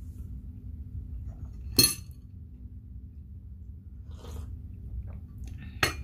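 Ceramic teacup clinking against its saucer as it is lifted, and clinking again near the end as it is set back down, over a steady low hum.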